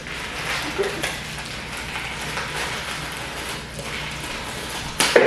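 Crackling, rustling handling noise from bowls and baking ingredients being fumbled about, with one sharp knock about five seconds in.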